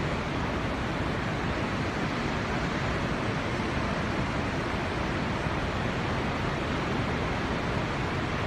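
Snow avalanche pouring down onto the road: a steady, even rushing noise with no breaks.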